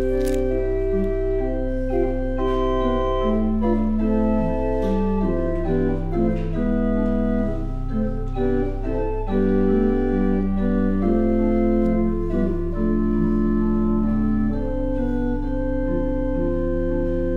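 Church pipe organ playing a slow passage of sustained chords with moving upper voices over a steady held pedal bass.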